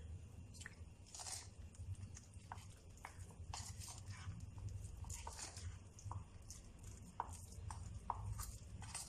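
Metal spoon stirring thick flour-and-water batter in a plastic bowl: faint, irregular clicks and scrapes as the spoon works the lumpy mix, over a steady low hum.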